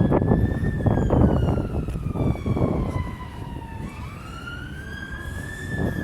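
Emergency vehicle siren in a slow wail: the pitch rises, falls slowly for about three seconds, then climbs again. Heavy low rumbling noise, loudest in the first three seconds, runs underneath.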